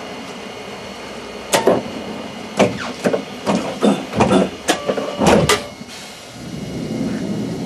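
Interior of a streetcar standing at a stop: a string of sharp clicks and knocks, then a steady hum that swells near the end.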